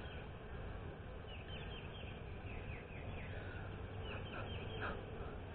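Small birds chirping in quick runs of short, falling notes, over a faint steady low hum from the honeybees of an open hive.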